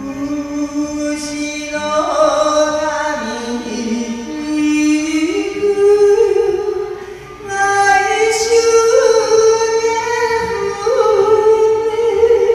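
A woman sings a Japanese song into a handheld microphone over a backing track, holding long notes with a wavering vibrato. She sings two phrases, with a short break about seven seconds in.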